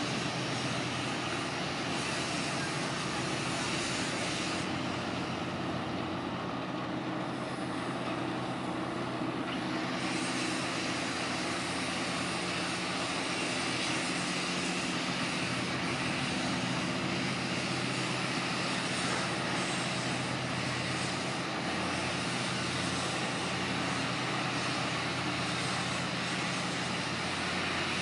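The fishing vessel Northwestern's diesel engine running steadily as the boat moves past at slow speed: a steady low hum.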